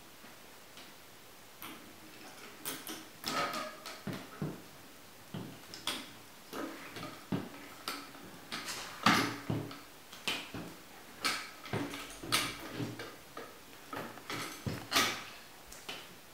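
Homemade crank-and-lever cutter worked by hand: the wooden lever arm and its blade knock and click irregularly, about one or two knocks a second, as the crank is turned and the blade chops down on asparagus on the platform.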